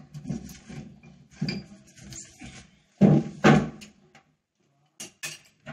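Things being moved around in a low kitchen cabinet under the counter: irregular clattering knocks of containers and packets, with two louder knocks about three seconds in.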